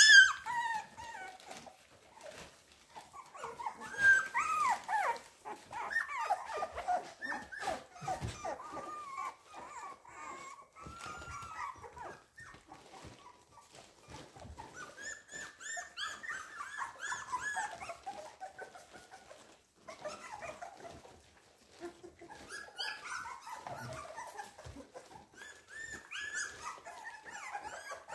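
American Staffordshire Terrier puppies whimpering and squeaking, many short high-pitched whines overlapping and coming and going with short lulls. These are young puppies' cries as they scramble for the mother's teats.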